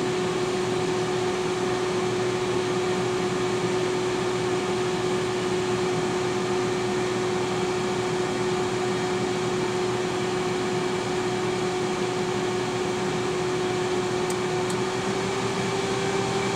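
T-fal air fryer running mid-cook: a steady fan whir with a steady hum, the hum's pitch rising slightly near the end.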